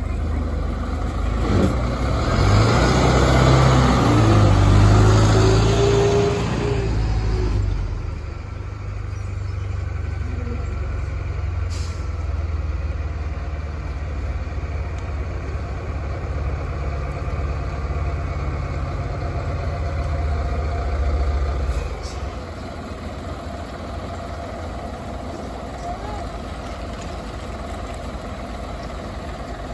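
Diesel engines of large fire trucks driving slowly past one after another. Loudest in the first several seconds, with the engine pitch rising and falling as a truck passes; a steady engine rumble follows and drops to a quieter level about two-thirds of the way through.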